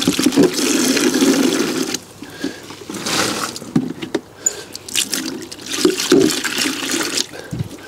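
Rinse water poured out of a plastic bucket into an outdoor drain gully, a heavy splashing pour for about two seconds that then thins to scattered splashes and drips as the bucket is shaken out.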